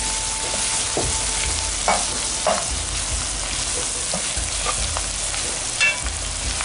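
Spiced mutton pieces sizzling in oil in a pot as they are stir-fried with a slotted spoon, with a steady frying hiss and a few short scrapes of the spoon against the pot.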